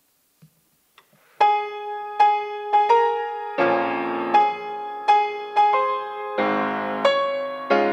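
Grand piano beginning an introduction after a brief quiet: a few single melody notes about a second and a half in, then fuller chords with a bass line from a little past halfway.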